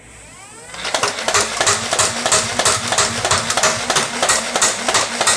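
Motorised Nerf N-Strike Elite blaster: its flywheel motor spins up with a rising whine, then it fires darts in a rapid, regular run of clacks, about three a second.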